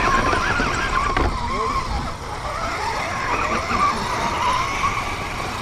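Electric motor and gear whine of a 1/10-scale RC rock crawler driving over a dirt trail, the pitch wavering up and down with the throttle over a rough rumble from the tyres and chassis.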